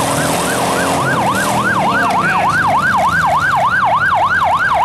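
Electronic yelp siren sweeping rapidly up and down, about four times a second, over the rumble of demolition derby car engines running.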